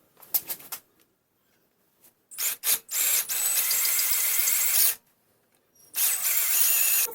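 A small high-speed power tool run in two bursts of about two seconds each, a steady high whine that starts and stops sharply, with a few short clicks and brief blips before it.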